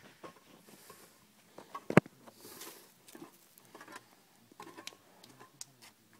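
Handling noise on a phone's microphone: scattered small clicks and rustles, with one sharp knock about two seconds in.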